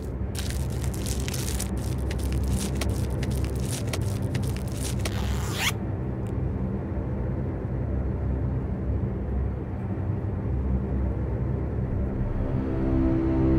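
Red gift wrap crinkling as a present is unwrapped, with a zipper drawn open on a glasses case: dense rapid crackling for about five and a half seconds that ends in a quick rising zip and stops suddenly. Only a low steady hum remains after that.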